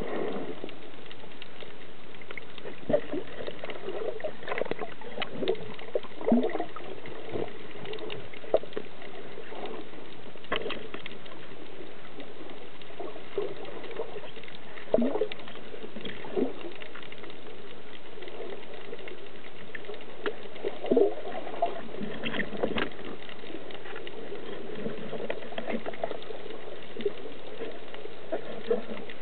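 Underwater ambience heard through a camera housing on a speargun: a steady hiss with scattered sharp clicks and knocks and short bubbling swishes as the diver moves.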